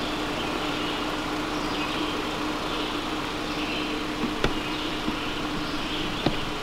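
Engine of a 2017 Jeep Cherokee Trailhawk running steadily as the SUV crawls slowly over a muddy trail. Two short sharp cracks come in the second half.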